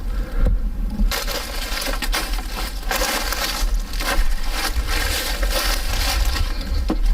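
Footsteps of a hiker walking along a trail, about one step a second, over a steady low rumble.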